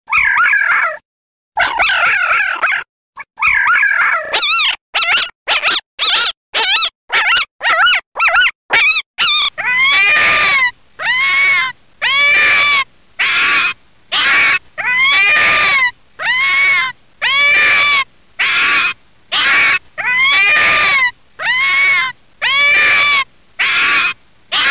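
Red fox barking: a long series of some two dozen high barks, each arching up and down in pitch. They come short and quick at first, then longer and evenly spaced, a little over one a second.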